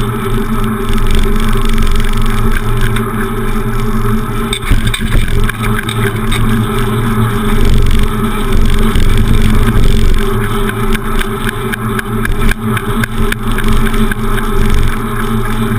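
Wind buffeting the microphone of a handlebar-mounted camera on a moving bicycle: a loud, steady rumble with a low hum, and short rattles and clicks from the bike jolting over the road surface.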